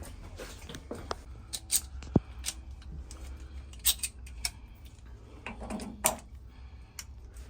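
Irregular metallic clicks and clinks of hand tools and metal fittings being handled while working on a water heater valve, the sharpest click a little after two seconds.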